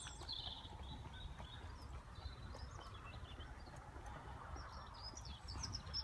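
Faint chirps and calls of small wild birds, many short high notes rising and falling, growing busier near the end, over a low rumble.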